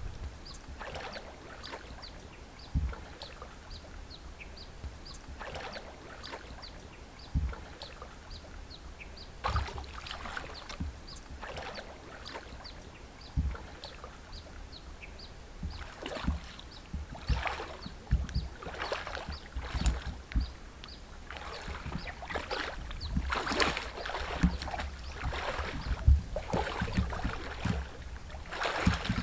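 Water sloshing and splashing as people wade through a muddy swamp pond, in irregular bursts that come more often in the last third. A faint, regular high ticking, about two a second, runs under it and stops about two-thirds of the way through.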